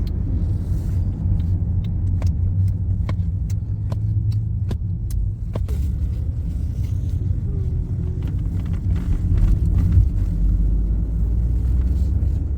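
Car driving: a steady low rumble of road and engine noise, with scattered light clicks throughout.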